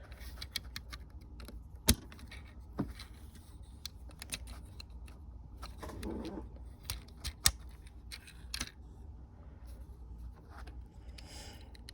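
Small plastic Lego pieces clicking and rattling as they are handled and pressed together while wheels are fitted to the car, with two sharper snaps, one about two seconds in and one a little past seven seconds.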